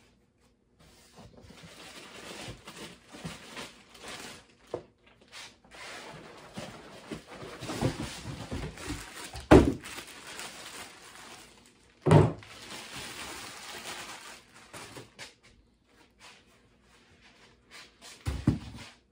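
Plastic bag crinkling and rustling as it is torn off a boxed lithium battery, with a few sharp thumps, the loudest about halfway through and another soon after, and one more knock near the end.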